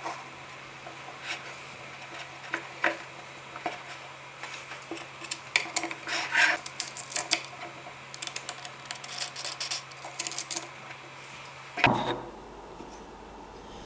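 Wooden parts being handled: irregular light clicks, taps and rubbing, with one louder knock near the end.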